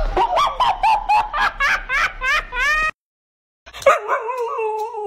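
A quick run of about a dozen short, high-pitched calls rising in pitch, then, after a brief gap, a dog's long, wavering howl-like vocalization, the drawn-out "talking" kind of call.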